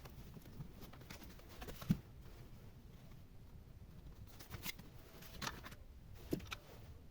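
Light scattered clicks and taps of small tools and phone parts being handled while a phone is put back together, over a low steady hum. The sharpest knock comes about two seconds in.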